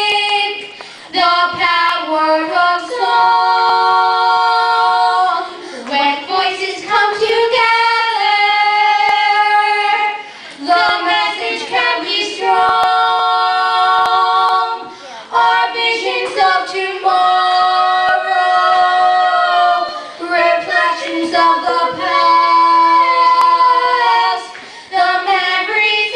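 Two children, a boy and a girl, singing a duet into microphones, holding long notes with short breaks between phrases.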